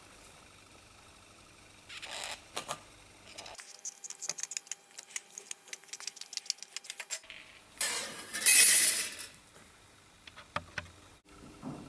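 Light metallic clicks and taps from sheet-metal work: a quick run of small clicks, then a short, loud scrape across steel about eight seconds in, with a few more taps near the end.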